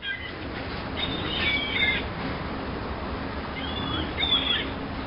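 Birds calling in two short bursts of high chirping calls, about a second in and again near four seconds, over a steady background hiss.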